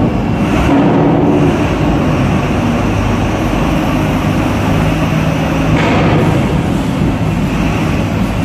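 Heavy diesel engines running steadily inside a ferry's enclosed vehicle deck, a constant low drone with no break.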